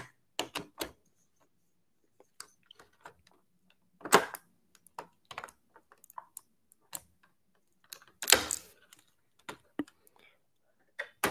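A plastic-packaged action figure and its accessories being handled and unpacked: irregular clicks, taps and rattles of hard plastic, with a louder rustle about four seconds in and a longer one at about eight seconds.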